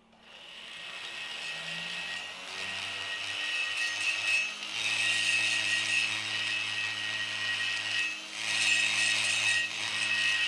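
Flexible-shaft rotary grinder with a burr cutting inside the aluminium intake port of a Honda PCX 150 cylinder head, a steady high whine with grinding hiss. It is porting the intake, enlarging it by 1 mm over standard. The whine builds up at the start and eases briefly about 4.5 s and 8 s in.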